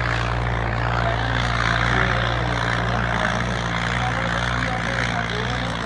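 Diesel tractor engine running steadily, a low even drone with no change in pitch.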